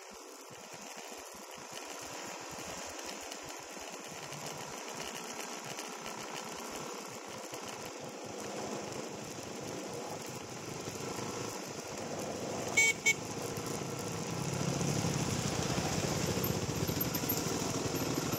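Dirt bike engines running and growing steadily louder as they draw closer, with a short double beep of a vehicle horn about two-thirds of the way in.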